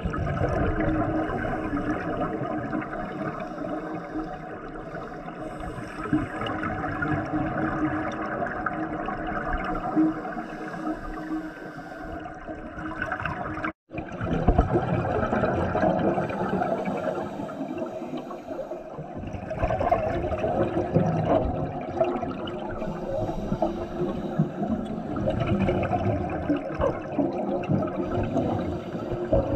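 Underwater sound of a diver breathing through a scuba regulator: rushing exhaled bubbles that swell and ease in a cycle of about six to seven seconds, with a momentary cut-out about halfway through.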